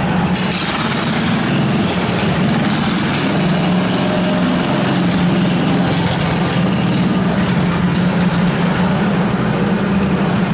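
Riding lawn mower engine running steadily, a constant low drone with no change in pitch.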